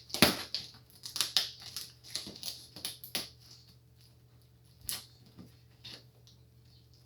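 Packaging being torn and crinkled open by hand: a quick run of crackling rips and rustles for about three seconds, then a few isolated crinkles.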